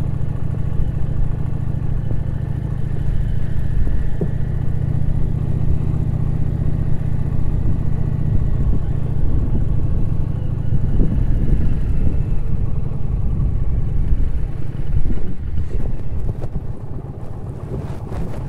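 Indian Challenger motorcycle's V-twin engine running steadily at low speed while the bike rolls over a cobblestone track, a deep continuous rumble. The engine eases off over the last couple of seconds.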